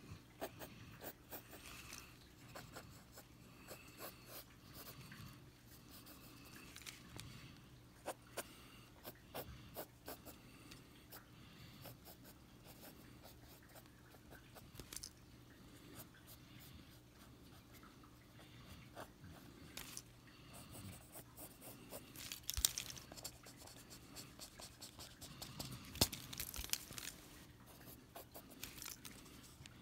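Pencil scratching on paper in short, irregular sketching strokes, faint throughout, with a busier run of strokes a little past two-thirds of the way in.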